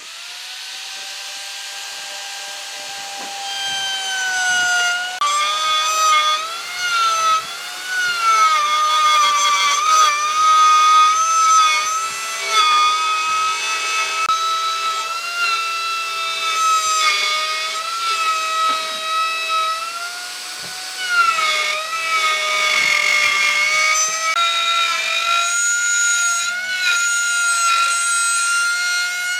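Electric power tool cutting wood, its motor whining steadily and the pitch dipping and recovering again and again as the cut loads it. It starts suddenly at the outset.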